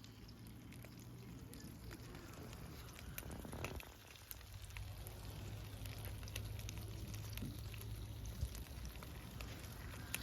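Faint sizzling and crackling of food cooking over heat, with a steady low hum underneath.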